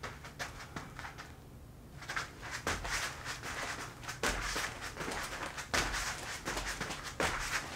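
Moccasined feet stepping, pivoting and scuffing on a foam play mat during a dance spin: quiet at first, then from about two seconds in a run of soft thumps and brushing scuffs.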